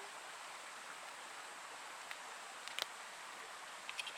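Steady outdoor background hiss, with a faint tick and then a brief cluster of sharp clicks and crinkles about three seconds in as a package of beef is opened.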